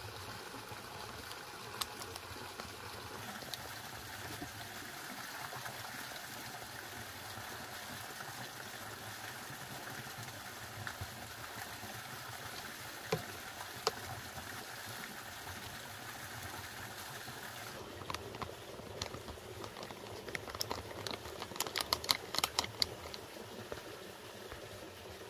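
Steady rush of running water that cuts off suddenly about two-thirds of the way through. After it, a plastic pesticide sachet crinkles and taps as it is torn and shaken out into a knapsack sprayer's tank, the crackles getting busier near the end.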